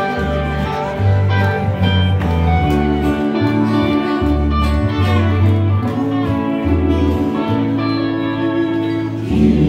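Live band music with no singing: guitar and keyboard over a moving bass line at a steady, loud level.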